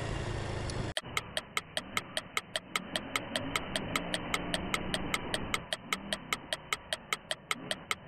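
Honda Super Cub's single-cylinder four-stroke engine running with road noise, cut off suddenly about a second in. It is followed by an even, rapid clock-like ticking, about five ticks a second, over a faint muffled background: a fast-forward sound effect.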